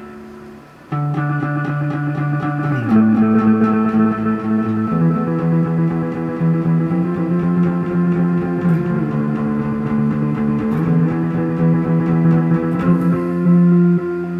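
Electric guitar played through a Montreal Assembly Goodbye 24 digital effects pedal: long held, layered notes that shift in pitch every second or two, after a fade and a fresh entry about a second in.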